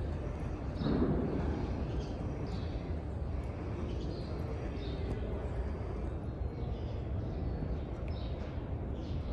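Ambience of a large mosque prayer hall: a steady low hum with faint, scattered bird chirps and a murmur of distant voices. There is a brief louder sound about a second in.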